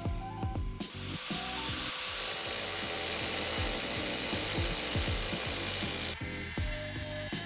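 Angle grinder with a 4-inch diamond blade cutting into hard porcelain tile: a loud, hissing grind that starts about two seconds in and cuts off sharply about four seconds later. Background music with a steady beat plays throughout.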